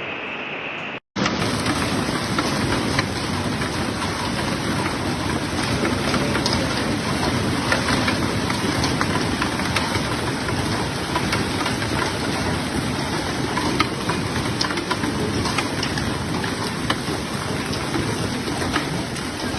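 Heavy storm downpour pelting hard surfaces: a dense, steady pattering with many small sharp hits, starting abruptly about a second in after a cut from a different steady noise.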